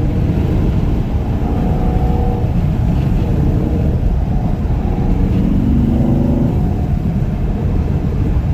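Chevrolet Camaro SS 1LE's 6.2-litre V8 running through its stock NPP exhaust, loud and continuous, with the engine note rising and falling as it revs and comes off the throttle.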